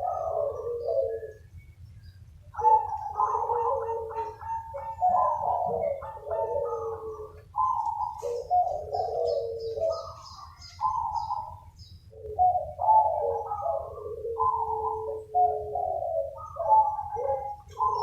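Several zebra doves cooing back and forth, their trilled, stuttering coo phrases overlapping one another. There is a brief lull about a second in, then the calling carries on without a break, with faint high chirping around the middle.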